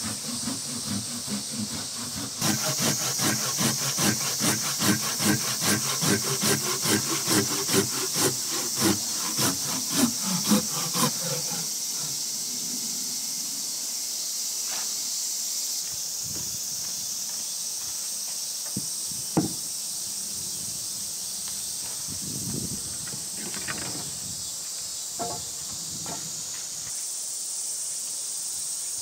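Hand saw cutting through a round wooden chair leg, with rasping strokes about twice a second. The strokes grow louder and stop about eleven seconds in. Afterwards there are a few light knocks of wood over a steady high-pitched hiss.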